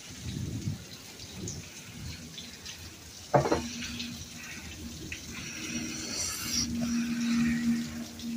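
Rain falling and dripping steadily. A sudden knock a little over three seconds in, then a low steady hum that grows stronger in the second half.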